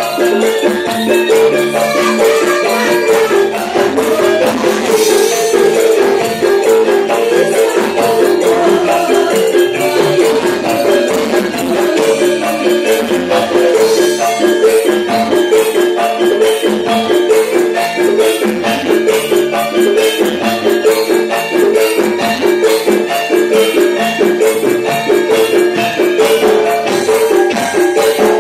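Javanese gamelan ensemble playing a lively, fast-paced piece: metallophone and bonang gong-chime notes repeating in quick, even steps over steady percussion.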